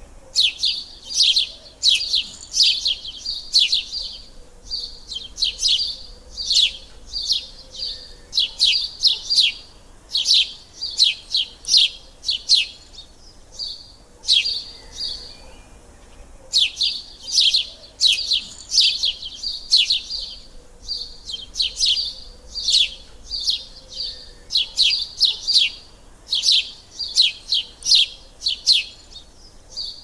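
Small birds chirping: quick runs of sharp, high chirps in bursts of a second or two, with short pauses between, and a longer lull about halfway through.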